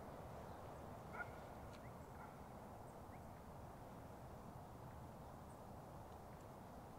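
Near silence: faint outdoor background with a few faint, short, high chirps between about one and three seconds in.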